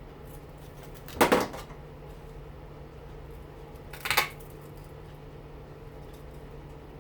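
Hand cutters snipping through the copper windings of a front-load washing machine motor: two sharp metallic cuts about three seconds apart, over a faint steady hum.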